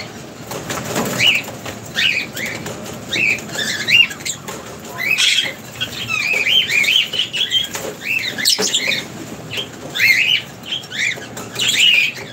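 Several lovebirds chirping in short, rising-and-falling calls, one after another, with a flutter of wings as a bird flies in to the perch.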